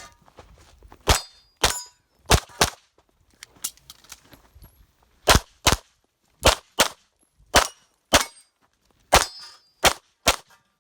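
9mm pistol fired in rapid pairs of shots, about fourteen shots in all, with short pauses between the pairs as the shooter moves between targets.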